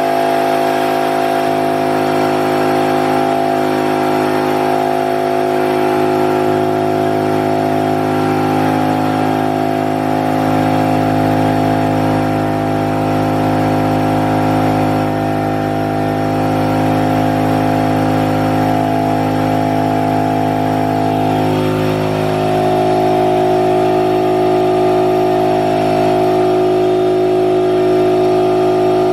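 Brother Speedio S700X1 CNC vertical machining center running under power: a steady mechanical hum made of several held tones, with a slight shift in pitch a little past the middle.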